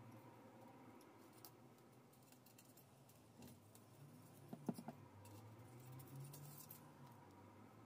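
Cutting pliers snipping fine craft wire: a couple of faint sharp clicks a little past the middle, with light handling sounds around them and otherwise near silence.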